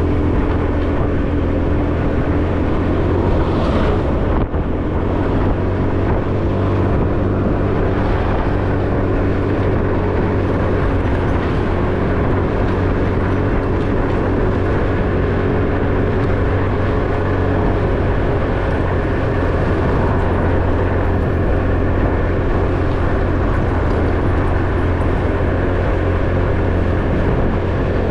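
Motorcycle engine running steadily under way, with road and wind noise; the sound dips briefly about four and a half seconds in.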